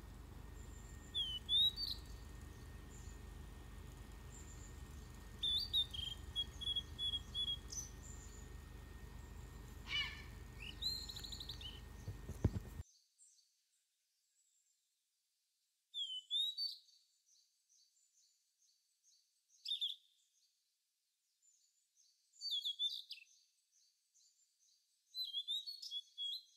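Blue-and-white flycatcher song from a sound-effect track: short phrases of high whistles and trills repeated every few seconds. A steady low background noise runs under the first half and cuts off suddenly about halfway through.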